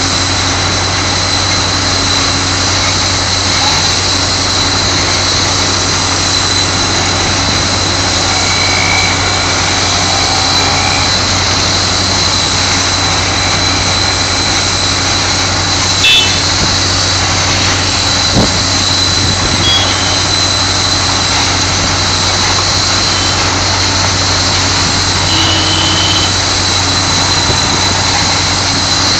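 A truck-mounted Speedcraft spray-injection pothole patcher running steadily as its nozzle blasts chippings into the pothole. Engine and blower give a constant low hum with a thin high whine over a steady hiss of air.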